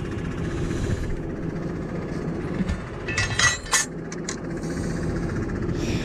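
Tractor engine idling steadily, with a short run of metallic clinks and knocks about three seconds in.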